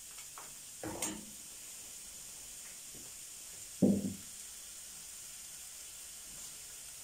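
Chopped onions sizzling steadily in oil and ghee in a frying pan, with a sharp knock about a second in and a louder thump just before four seconds in.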